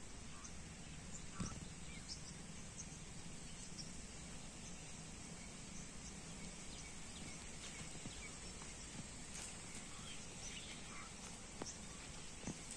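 Faint rural outdoor ambience: a steady low rumble with scattered faint bird calls. Near the end, footsteps through dry grass come close.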